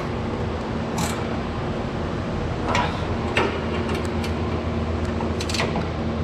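Scattered short clicks and scrapes of hand tools on metal, about five in six seconds, as bolts on a new truck hood latch are snugged down. Under them runs the steady hum of an evaporative swamp cooler's fan.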